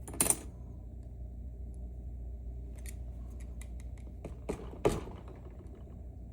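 Small metal lock pins and parts being handled and set down: a sharp click about a quarter second in, a scatter of light ticks, then two more clicks near the five-second mark, over a steady low hum.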